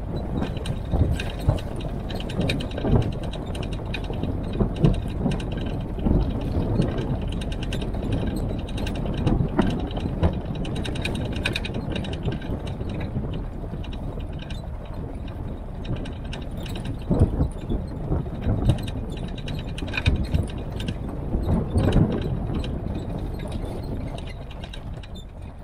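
Military-style Jeep driving on a rough gravel track, its engine running with a steady rattle of the body and fittings and scattered knocks as it rides over bumps.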